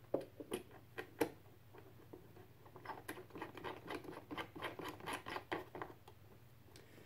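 Small clicks and rubbing from cables and connectors being handled and fitted on a portable ham-radio go box while the antenna is hooked up: a few sharp clicks in the first second or so, then a run of quick light ticks and scraping from about three to six seconds.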